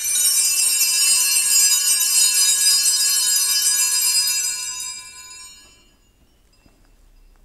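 Altar bells, a cluster of small Sanctus bells, shaken in a steady ringing jangle for about four and a half seconds and then fading away, rung at the elevation of the consecrated host.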